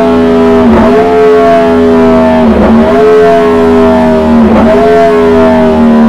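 Yamaha MT-10's 998 cc crossplane inline-four running through a Dominator aftermarket silencer on a dyno, its note falling slowly as road speed drops. Three times, about two seconds apart, the note briefly dips and picks up again, as the bike shifts down through the gears.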